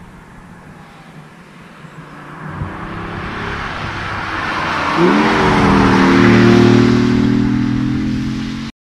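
BMW i8's 1.5-litre turbocharged three-cylinder engine accelerating hard as the car approaches, growing steadily louder with tyre and wind rush. About five seconds in, the engine note sweeps sharply up in pitch and then holds high and steady, before the sound cuts off abruptly.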